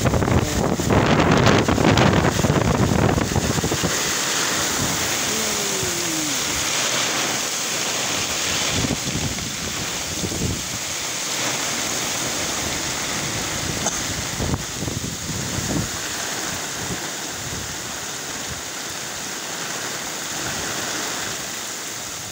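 Heavy tropical downpour with wind: a steady dense rush of rain, with gusts buffeting the microphone that are strongest in the first few seconds.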